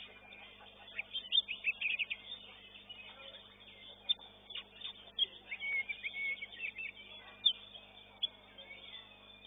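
Oriental magpie-robin (kacer) song: bursts of quick, high whistled notes and short sliding calls with brief pauses between, over a faint steady hum.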